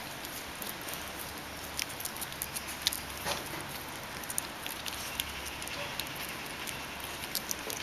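Bichon Frisé puppies making scattered light clicks and scuffs as they shuffle on stone paving and nuzzle a hand, over a steady background hiss.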